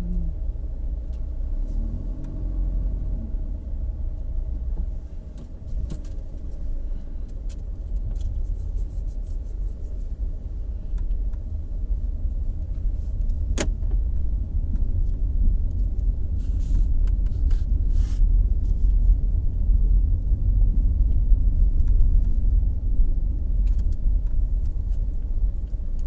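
Car driving, heard from inside the cabin: a steady low rumble of engine and road noise that grows louder in the second half as the car climbs a slope. There is a single sharp click about halfway through.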